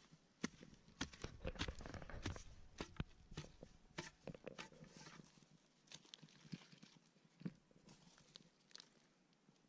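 A long digging tool jabbing and scraping into damp soil, with irregular sharp knocks and dirt crumbling away, busiest in the first few seconds.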